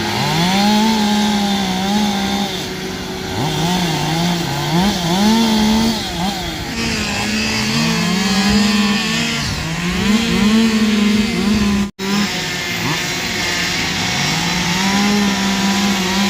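Several two-stroke chainsaws carving wood, overlapping, each revving up and dropping back again and again. The sound cuts out for an instant about twelve seconds in.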